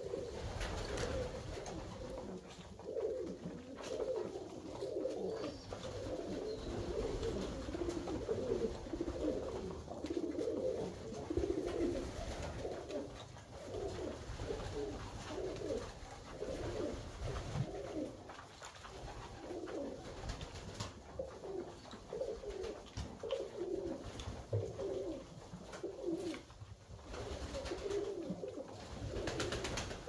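Alföldi-Körösi tumbler pigeons cooing over and over, several birds' coos overlapping, with a few faint knocks.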